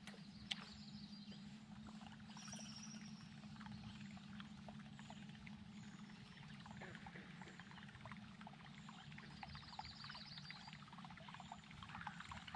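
Faint water trickling and lapping at a boat hull on calm water, with a steady low hum and scattered small ticks.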